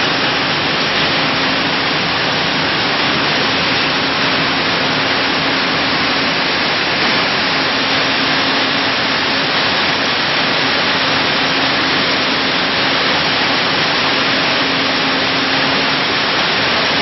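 Broad bean dehulling machine running: a loud, steady noise with a low hum running under it, as hulled beans and husks stream out of its outlet.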